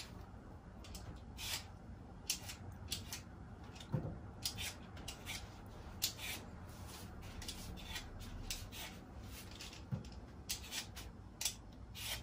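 Kitchen knife slicing a raw potato on a cutting board: short crisp cuts at an uneven pace of about two a second, with an occasional duller knock of the blade on the board.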